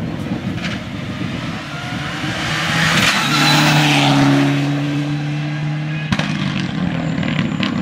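Mitsubishi Lancer Evolution rally car's turbocharged four-cylinder engine passing close at speed. Its engine note holds steady and is loudest about three to four seconds in, then fades.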